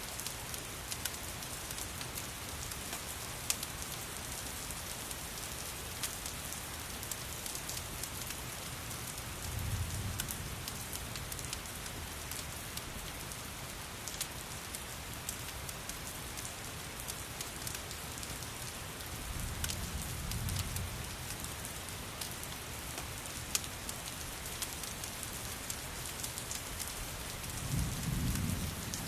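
Steady rain falling, with scattered sharp crackles from a fireplace. A low rumble swells and fades three times, about ten seconds apart.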